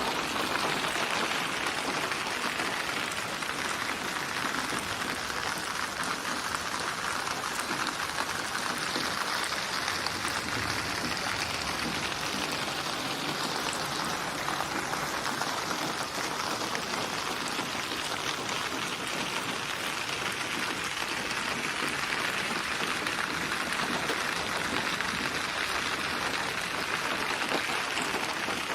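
Steady rain with a dense patter of raindrops, even throughout.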